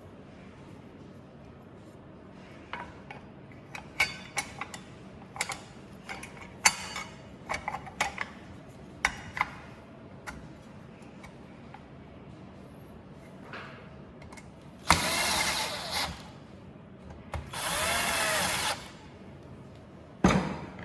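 Belt sander side cover being fitted, with a series of light clicks and knocks of parts and screws. Then a power screwdriver runs twice for about a second each, driving the cover screws, its pitch bending as the screw seats.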